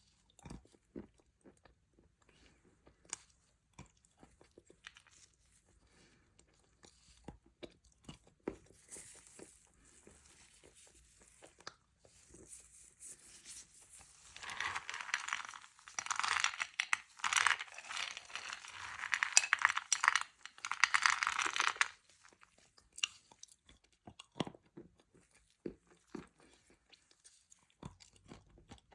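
Close-up crunching and chewing of large, dense granules of white kaolin clay. Scattered soft clicks at first, then a louder, dense crackling crunch for several seconds about halfway through. The clay crunches without squeaking.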